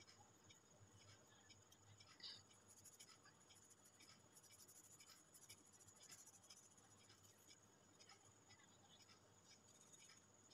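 Faint scratching of a felt-tip pen colouring on paper in quick back-and-forth strokes, with one slightly louder squeak about two seconds in.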